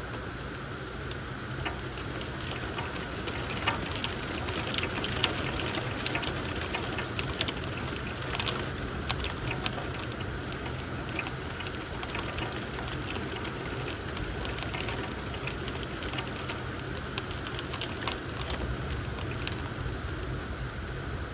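Thunderstorm rain falling steadily, with many sharp individual drop hits on a nearby surface, thickest in the first half.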